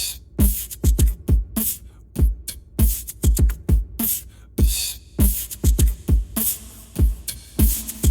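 Background music: a bare drum beat of deep kicks and hissy high hits, about two to three a second, with no melody.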